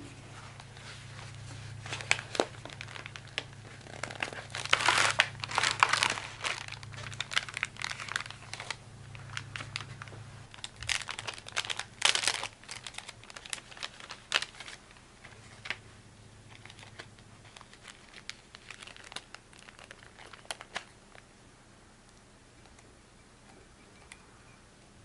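Paper drip-coffee packet being torn open and its filter bag unfolded: irregular crinkling and rustling of paper, loudest about five and twelve seconds in, growing sparse near the end.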